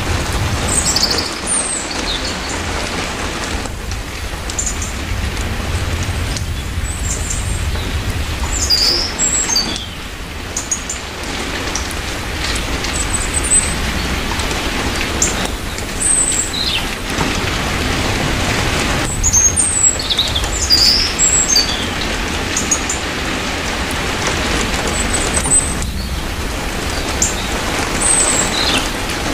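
Steady heavy rain falling, with birds chirping briefly every few seconds above it.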